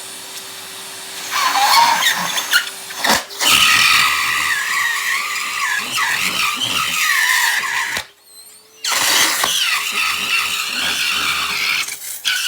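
Henry vacuum cleaner running while sucking a rubber glove finger into its nozzle, the rubber vibrating in the airflow with a loud wavering squeal over the steady motor tone. About eight seconds in the squeal cuts out for under a second, then starts again.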